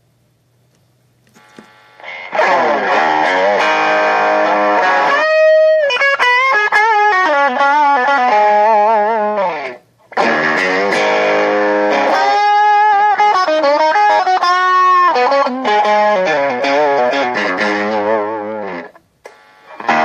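Fender Japan '69 reissue Stratocaster electric guitar being played. After a near-quiet start with a low hum, chords ring out about two seconds in, followed by a lead line of single notes with wavering vibrato. The pattern repeats after a brief break about halfway, and the sound cuts out for a moment near the end.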